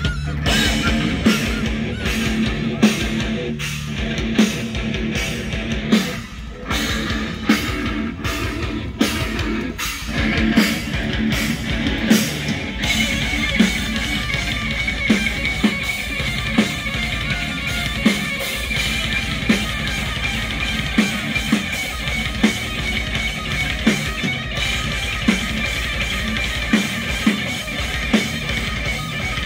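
A live heavy rock band playing distorted electric guitars over bass and a drum kit with a steady beat. About thirteen seconds in, the guitars thicken into a dense, sustained wall of sound.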